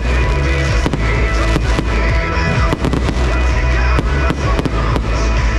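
Fireworks going off in quick succession, many sharp bangs and crackles, over loud pop music with a steady heavy bass.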